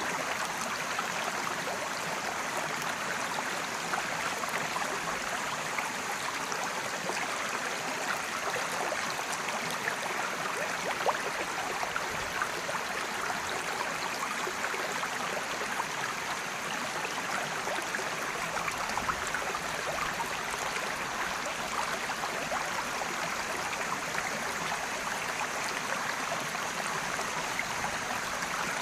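A mountain creek rushing and splashing over rocks in a steady, even flow, with small crackles of water throughout.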